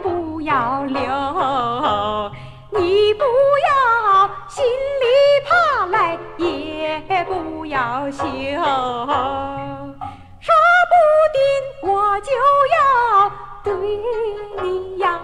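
A 1950s Hong Kong Mandarin pop recording: a high female voice sings phrases that swoop up and down with vibrato, over a band accompaniment with a steady, repeating bass line.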